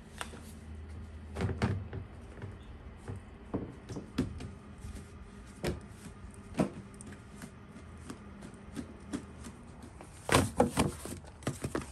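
Scattered light taps and soft knocks as bread dough is stretched and handled by hand and set down, with a denser cluster of louder knocks about ten seconds in as flour is dusted onto a metal baking tray.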